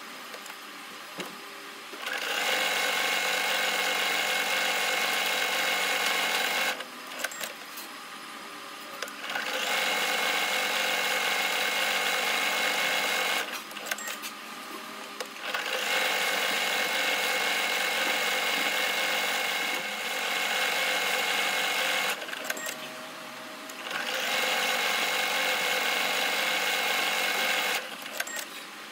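Usha Janome Dream Maker 120 computerized sewing machine stitching in four steady runs of a few seconds each, stopping briefly between them.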